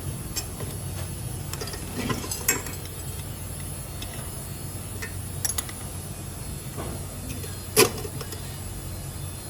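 Steady low hum with a few scattered sharp clicks and knocks from workshop work, the loudest knock about eight seconds in.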